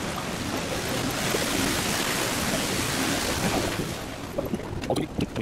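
Water splashing from an indoor lobby fountain: a steady rushing hiss that swells and then fades out about four seconds in. After it come footsteps and a few light knocks.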